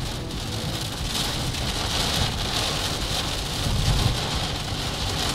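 Heavy rain falling on a moving car's windshield and roof, heard from inside the cabin as a steady hiss over a low rumble.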